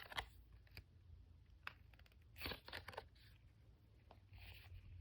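Faint crinkling of a foil booster pack and handling of trading cards, heard as a few short rustles and clicks.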